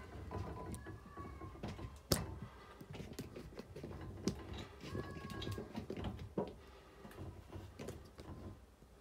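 Scattered knocks, clicks and rustling from movement and handling in a small wooden space, with a few short faint squeaks. A sharp knock about two seconds in is the loudest sound.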